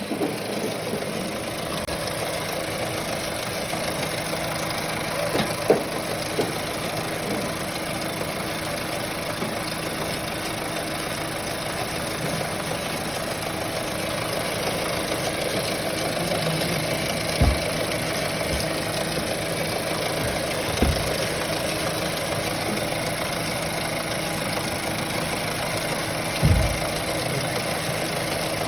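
Renault Mégane 3 115 hp engine idling steadily with an engine noise put down to the timing chain tensioner. A few isolated low thumps stand out over the idle.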